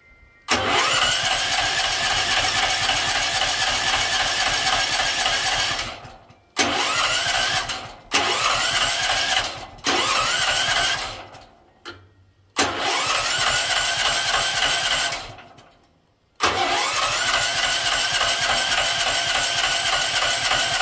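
Stanley petrol generator being cranked on its electric starter in about six separate attempts, each spinning up with a rising whine and a rapid pulsing, with short pauses between them. The engine turns over but does not catch and run.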